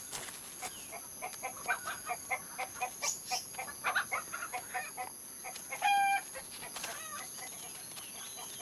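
Domestic chickens clucking in a quick run of short calls, several a second, with one louder drawn-out call about six seconds in.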